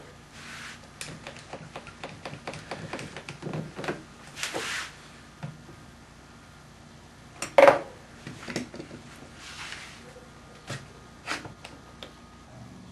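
One-handed bar clamps and a steel try square being handled and set on a glued-up wooden board on a saw table: scattered clicks and knocks with a few short scraping sounds, the loudest knock about halfway through.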